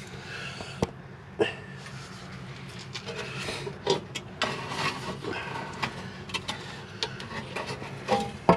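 Scattered metallic clinks and knocks of a car exhaust pipe and hand tools being handled under a car, over a steady low hum.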